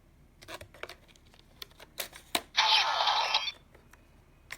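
Plastic clicks from a Rider card being handled and slid into a modified DX Diendriver toy gun, followed about two and a half seconds in by roughly a second of the toy's electronic sound effect through its small speaker.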